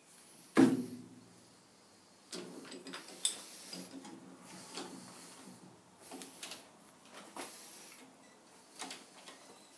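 A sharp metal clank with a short ring about half a second in, then scattered lighter knocks, taps and scrapes from a heavy steel part and its fixture being handled and shifted on a lathe during setup.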